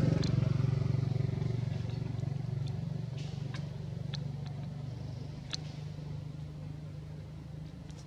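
A motor vehicle's engine, a low steady drone that fades gradually. A few short high chirps sound over it.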